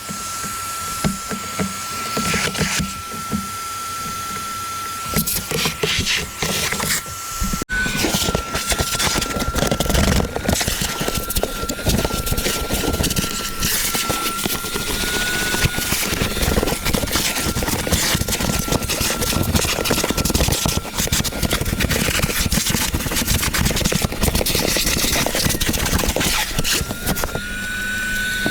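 Vacuum cleaner running steadily: a constant high motor whine over a rushing of air, with small clicks and knocks from the nozzle, the whine rising slightly a couple of times.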